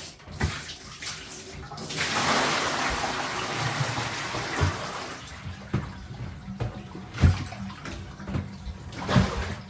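Water and soaked clothes pouring out of a tipped laundry basket into a bathtub: a rush of water starting about two seconds in and tailing off, followed by a few dull thumps.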